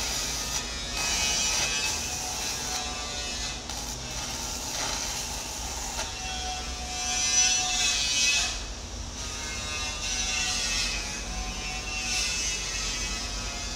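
Electric arc welding on a steel excavator bucket: a steady crackling, buzzing arc.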